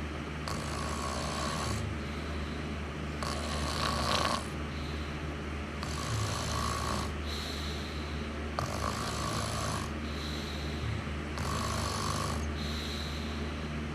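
Snoring in regular breaths, one about every three seconds, over a steady low hum.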